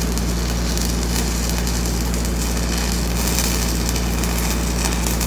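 Stick-welding arc crackling and sizzling steadily as a downhill filler pass is run on a steel pipe branch, with a steady low hum underneath.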